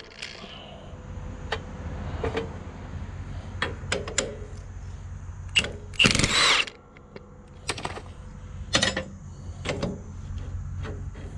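Cordless drill with a socket spinning on a bolt of a riding mower's deck-height linkage in short bursts, the loudest about six seconds in, among clicks and clanks of the metal link and a hand wrench.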